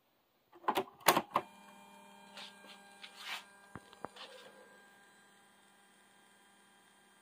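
Cassette deck key on a Jensen CD-725 stereo being pressed: a quick cluster of sharp mechanical clicks and clunks about a second in. A faint steady hum follows, with a few light handling clicks.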